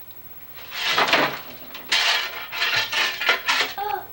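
Broken brick and mortar rubble being scraped and scooped out of a fireplace firebox with a long-handled tool, in several short, gritty scrapes and clatters.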